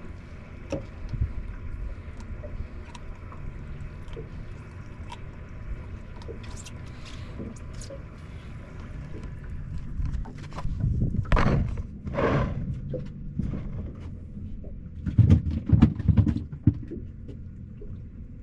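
Steady low hum aboard a fishing boat with scattered knocks and clicks of gear being handled. Two louder bouts of thumping and rustling come about ten seconds in and again near fifteen seconds.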